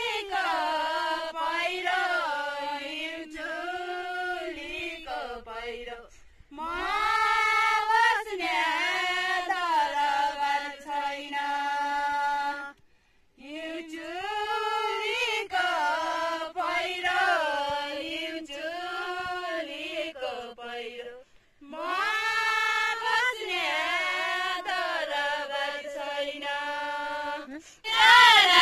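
A group of women singing a Nepali deuda folk song unaccompanied, in long drawn-out phrases with short pauses for breath between them. The singing turns louder just before the end.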